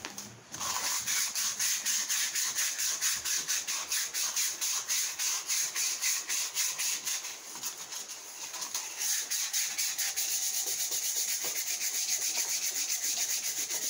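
Sanding sponge scrubbed rapidly back and forth by hand on the painted steel tube of an engine stand, scouring off the paint so the swivel parts won't stick together. The even strokes start about half a second in and ease off briefly about two-thirds of the way through.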